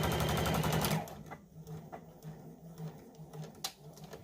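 A Juki HZL-DX computerized sewing machine stitching at a fast, even rhythm, running quietly, stops about a second in. A few light clicks follow.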